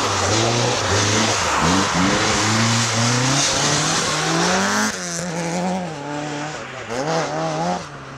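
Rally car engine accelerating hard through several gear changes, its pitch climbing and falling back at each shift, with a hiss over it. About five seconds in the sound drops off sharply and goes on quieter, the engine still revving up and down.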